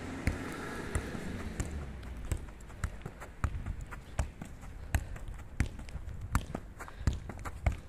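A football being kept up while walking: a steady run of short thuds as the ball is tapped up off foot and thigh, about one touch every two-thirds of a second.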